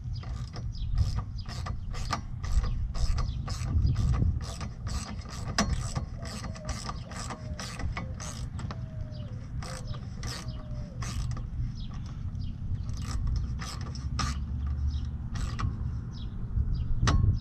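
Hand ratchet clicking as it is swung back and forth on a fastener, about two to three clicks a second, thinning to occasional clicks after about ten seconds.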